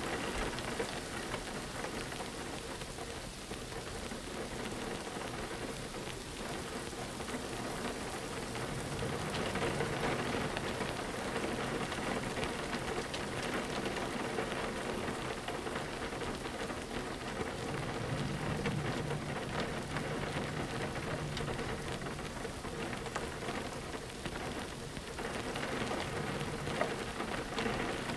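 Steady rain falling on a window pane, a dense patter of drops. A low rumble swells twice, about a third of the way in and again past halfway.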